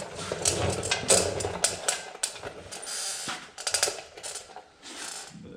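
Hand tools and steel parts clinking and rattling in a quick, irregular run of sharp metallic clicks and knocks, as a rusted bracket bolt is worked loose on a mower chassis.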